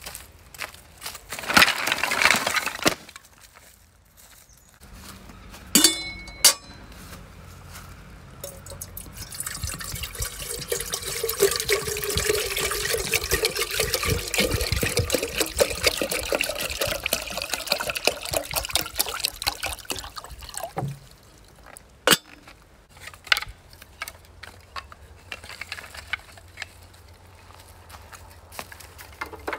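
Water poured from a plastic bottle into an enamel kettle for about ten seconds, rising slowly in pitch as the kettle fills. Before it come a short clatter and a ringing metal clink, and after it a few sharp knocks of split firewood.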